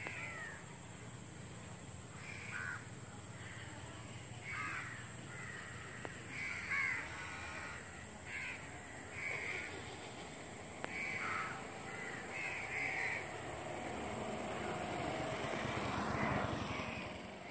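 Crows cawing, short harsh calls repeated every second or two. A rising rush of noise builds near the end.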